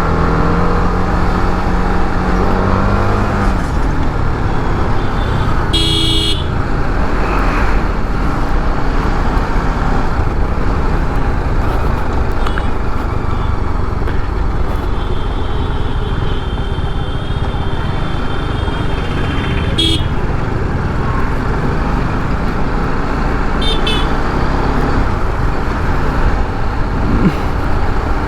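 TVS Apache RR310's single-cylinder engine on its stock exhaust, pulling up through the revs for the first few seconds and then cruising at highway speed under heavy wind rush. Vehicle horns honk briefly about six seconds in and again near twenty seconds.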